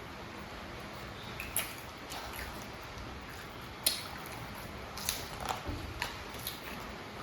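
Crispy fried samosa pastry crackling as it is bitten and chewed: scattered sharp crunches, several closer together in the second half.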